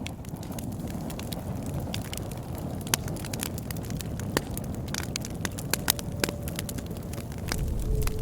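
Wood fire crackling, with frequent irregular sharp pops and snaps over a low rumble of burning, which swells near the end.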